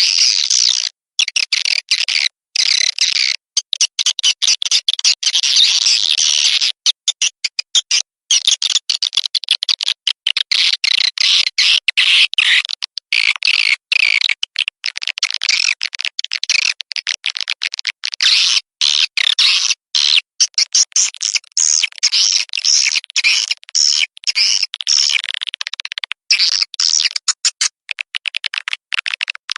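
Swiftlet lure-call recording: dense, rapid twittering chirps of swiftlets, of the kind played to draw the birds into a nesting house, running on with many short breaks.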